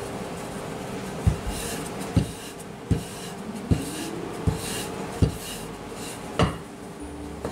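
Wooden rolling pin rolled back and forth over pie-crust dough on a floured countertop: a rubbing, scraping sound with a thump at each stroke, about seven strokes in an even rhythm of roughly one every three-quarters of a second.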